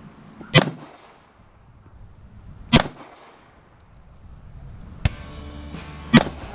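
Semi-automatic pistol fired three times, slowly, about two to three seconds apart, each shot sharp with a short echoing tail. Background music comes in about five seconds in, under the last shot.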